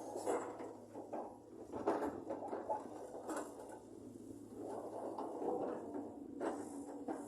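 Cat 320 GC hydraulic excavator at work: steady machine noise with irregular knocks and scrapes.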